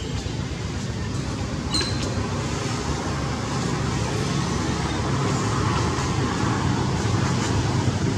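Steady background rumble and hiss, like distant traffic, with a brief high chirp about two seconds in.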